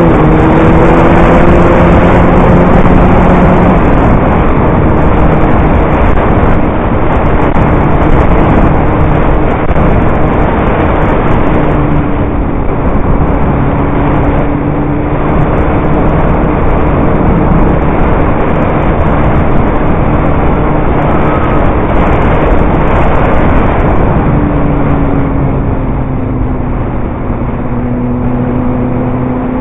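Motorcycle engine running on the move, heard from a helmet-mounted camera under heavy wind rush. The engine note climbs at the start, holds steady while cruising, and falls about 24 seconds in as the bike slows.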